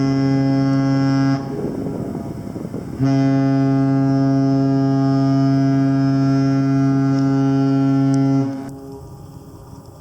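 Carnival cruise ship's horn blowing deep blasts in a horn battle between two ships. A blast cuts off about a second and a half in, and after a short break a second, longer blast of about five and a half seconds sounds, stopping near the end.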